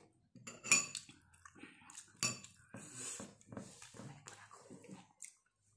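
A spoon clinking against a ceramic soup bowl and plate several times, two clinks louder and ringing briefly.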